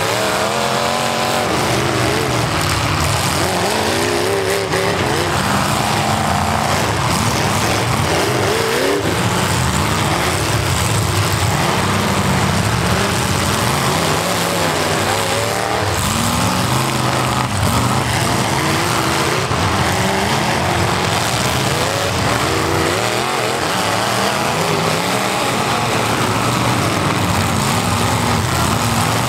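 Several V8 demolition derby cars revving hard at once, engine notes rising and falling over and over in a steady din, with body panels crunching as the cars ram each other.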